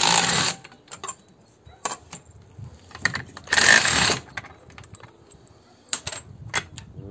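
Cordless impact wrench hammering in two short bursts, about half a second each, at the start and again about three and a half seconds in, undoing the clamp nuts that hold angle-grinder discs. Light metal clinks of discs and nuts being handled between the bursts.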